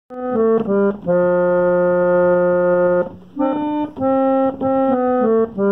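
An 1890s Chicago Cottage pump reed organ being played by hand: a slow phrase of notes starting suddenly, with one note held for about two seconds before the melody moves on.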